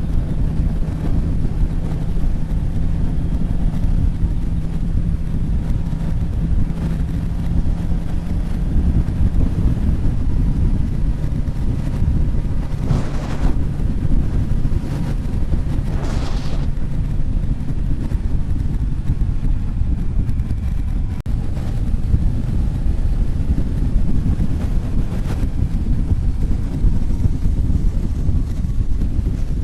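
Wind rushing over the microphone of a moving motorcycle, with the bike's engine running steadily underneath. There are two brief surges of hiss partway through.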